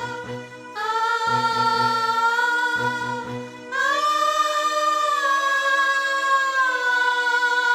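Background music: a singing voice holds long, drawn-out notes over a low pulsing accompaniment, which drops out about three and a half seconds in, leaving the sustained melody.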